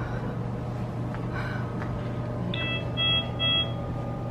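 Electronic beeps from hospital bedside medical equipment: a brief tone about two and a half seconds in, then two short beeps about half a second apart, over a steady low hum.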